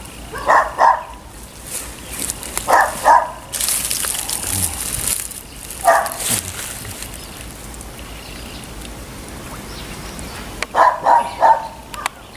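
A dog barking in short runs of one to four barks, several seconds apart, with a spell of rustling about four seconds in.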